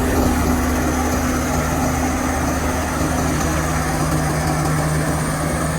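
Heavy diesel engine of construction machinery running steadily, a constant low hum.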